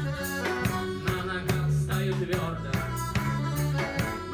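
Live band playing an instrumental passage of a tango-styled rock song: electric guitar and drums with a steady beat.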